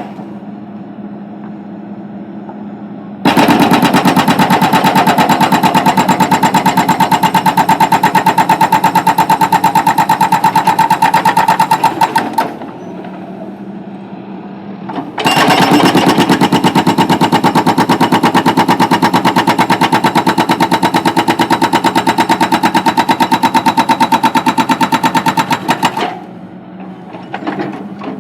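Backhoe-mounted hydraulic road breaker hammering in two long runs of rapid, even blows, each about nine seconds long with a pause of a few seconds between. The backhoe's engine runs steadily underneath and alone in the pause.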